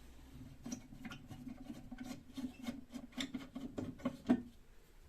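Small clicks, taps and scraping of a hand tool being pushed and pried against a refrigerator's door fitting, with a sharper knock a little after four seconds. A steady low hum runs beneath.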